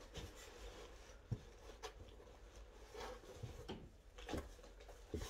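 Soft items being stuffed into a cardboard box: hands and slippers rustling and bumping against the cardboard, with several short, light knocks spread through.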